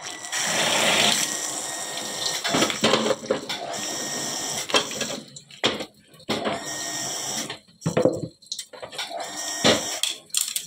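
Tap water running into a stainless steel sink and splashing over dishes as they are rinsed, with a few brief breaks in the flow and knocks of bowls and utensils being handled.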